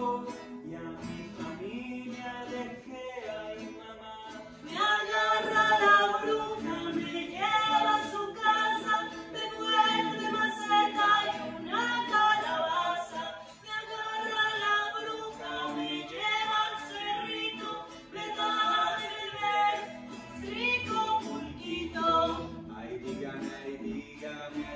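A song sung to acoustic guitar accompaniment; the singing grows louder about five seconds in.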